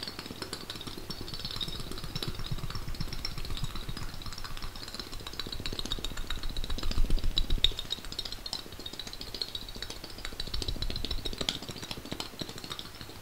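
Fast, close-miked ASMR trigger sounds: a rapid rhythmic patter of crisp taps and clicks with soft low thumps, several a second, growing louder toward the middle and then easing off.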